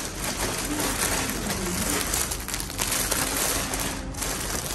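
Thin plastic packaging bags crinkling and rustling steadily as they are handled and turned over.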